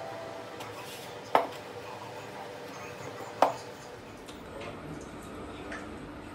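Wooden rolling pin knocking against a wooden board as dough is rolled out: two sharp knocks about two seconds apart.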